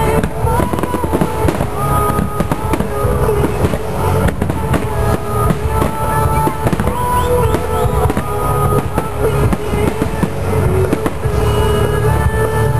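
Fireworks bursting in quick succession, many sharp bangs and crackles, over loud music played for a pyromusical display.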